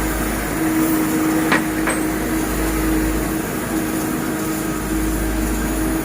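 Ship's engine running steadily, with two sharp knocks about a third of a second apart around a second and a half in.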